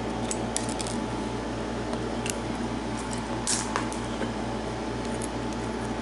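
A few small, sharp metallic clicks and one scrape from a brass lock cylinder, its plug and key being handled and worked apart, over a steady background hum with a fast regular pulse. The loudest click comes about three and a half seconds in.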